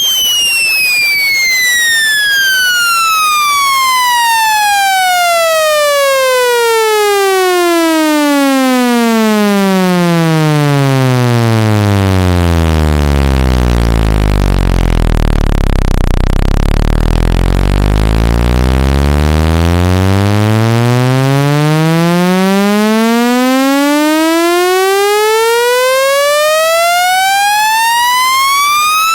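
Electronic speaker-cleaning tone: a buzzy test tone that sweeps steadily down in pitch from a high whistle to a deep bass hum about halfway through, then sweeps back up. The sweep is meant to vibrate dust and water out of a phone speaker.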